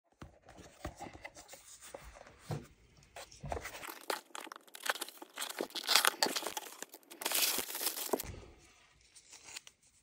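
Packing tape being ripped off a cardboard shipping box, with crackling cardboard and small handling clicks. The longest, loudest rips come in the middle, and it stops shortly before the end.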